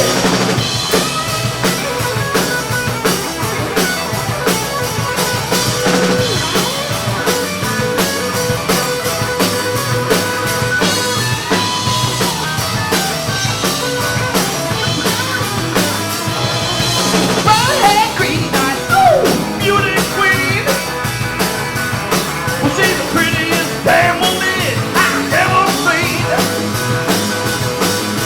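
Live rock band playing a song at rehearsal: a drum kit keeping a steady beat under guitars, with a melody line that bends in pitch.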